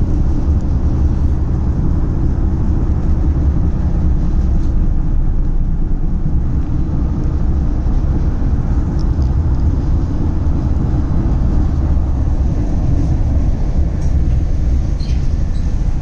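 Train running at a steady pace: an unbroken low rumble with faint high ticks now and then.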